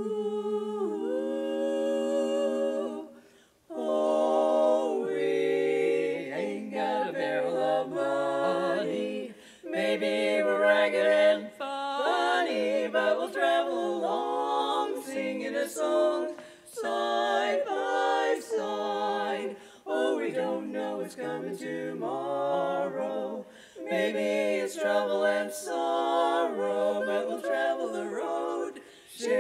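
Women's barbershop quartet singing a cappella in four-part close harmony: held chords sung in phrases, with short breaths between them.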